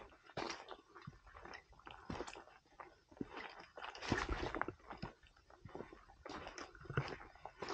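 Hiker's footsteps crunching on loose stones and dry fallen leaves along a rocky forest trail, at an uneven walking pace.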